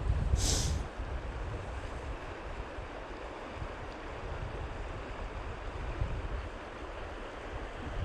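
Steady rush of creek water, with wind buffeting the microphone in low rumbles. A short hiss about half a second in.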